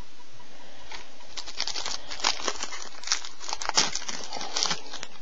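Trading-card pack wrapper crinkling and cards rustling as they are handled: a quick run of small crackles and clicks starting about a second in.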